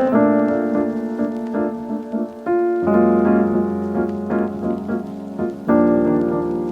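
Background piano music, slow sustained chords struck every few seconds.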